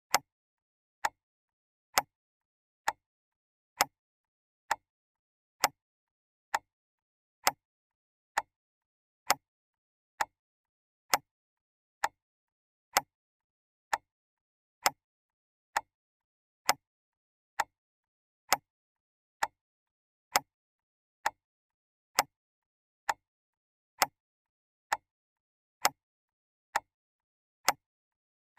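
Clock ticking steadily: single sharp ticks, evenly spaced a little under a second apart, with silence between them.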